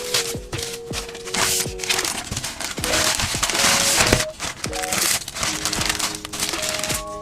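Packaging crinkling in bursts as it is handled, with sharp clicks, over background music.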